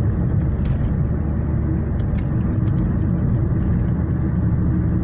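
Steady low rumble of a car driving, engine and tyre noise heard from inside the cabin, on a worn, patched asphalt road.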